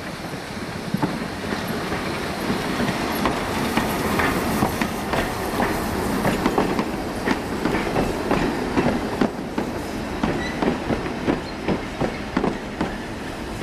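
Isle of Man Railway No. 12 Hutchinson, a Beyer Peacock 2-4-0 tank engine, running past close by with its narrow-gauge train. The carriage wheels then click in quick sharp bursts over the rail joints as the coaches roll by, the clicks growing sharper from about the middle on.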